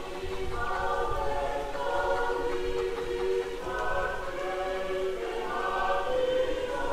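A church congregation singing a hymn in several-part harmony, holding long notes that change together about once a second.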